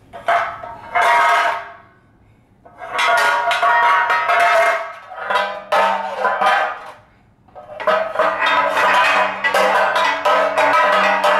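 Metal baking pans being clanged and clattered on a tile floor and against each other, in bouts of rapid ringing strikes with short pauses between.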